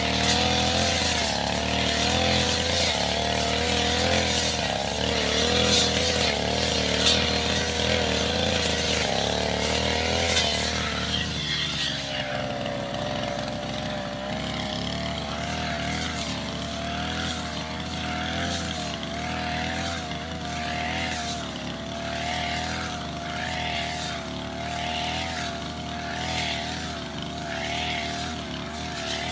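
Backpack brush cutter's small petrol engine running under load with a round metal blade, its pitch wavering as it swings through tall grass. About twelve seconds in, the engine settles to a steadier, slightly quieter note.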